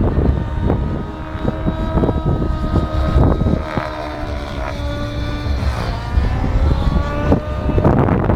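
Radio-controlled model aircraft running steadily, its pitch dipping a little past the middle and then rising again. Gusty wind rumbles on the microphone underneath.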